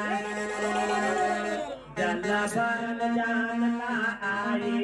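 Men singing a phagwa Holi folk song together in a chanting style over a steady held keyboard note, with a brief break about two seconds in.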